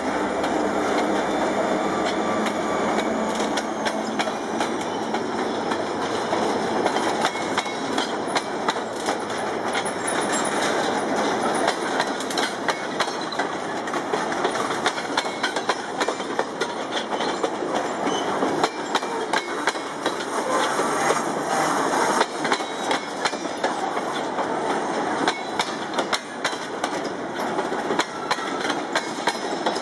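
Slow freight train of tank cars and steel coil cars rolling past at close range: a steady rumble of wheels on rail with frequent sharp clicks and clacks over the track. The diesel locomotive's engine drone fades in the first seconds as it moves on.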